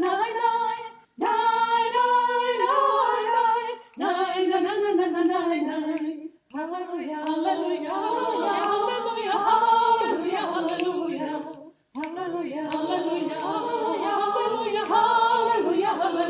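A group of voices singing a hymn unaccompanied, in phrases with short breaks between them, at the opening of a Catholic Mass.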